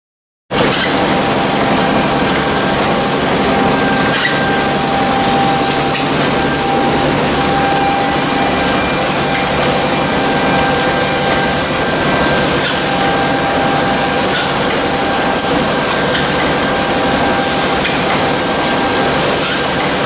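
Industrial bread production line running: conveyors and an automatic bread-bagging machine make a loud, steady mechanical din with a steady whine through it.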